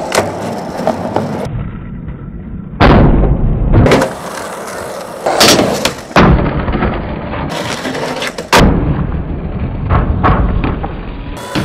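Skateboard sounds: wheels rolling and grinding on wooden ramps and ledges, with several sharp pops and landing slaps. The sound changes abruptly several times as one short clip cuts to the next.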